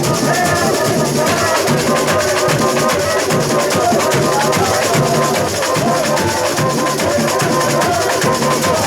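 Samba school bateria playing a steady samba groove: surdo bass drums, snares and other percussion beating together in a dense, continuous rhythm.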